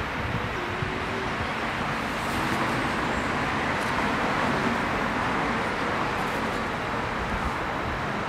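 A car driving past on the street: a steady rush of tyre and engine noise that swells toward the middle and eases off again.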